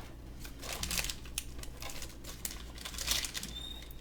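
Action-figure packaging crinkling and clicking in irregular bursts as it is worked at to get it open, with a busier flurry about three seconds in.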